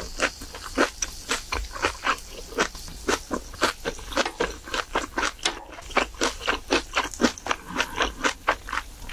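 Close-miked chewing of food: wet, crunchy mouth clicks, about three or four a second, irregular.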